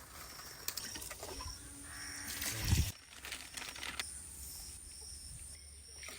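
Insects chirping in a field, short high chirps repeating about once or twice a second. About two seconds in there is a louder harsh rasping noise, ending in a low thump.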